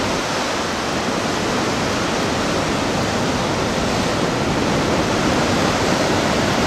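Ocean surf breaking and foaming among shoreline rocks: a steady, continuous rush of white water.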